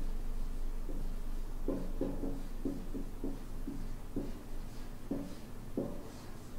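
Felt-tip marker writing on a large paper pad: a run of short, quick strokes as letters are written out, coming thick and fast from about a second and a half in.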